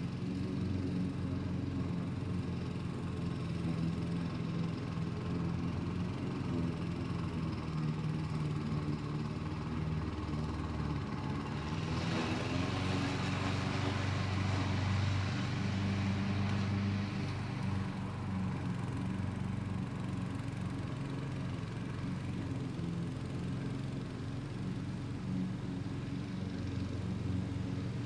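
Neighbours' lawn mower engines running steadily at a distance, their hum shifting in pitch now and then. Midway, a rush of noise swells for about six seconds and fades.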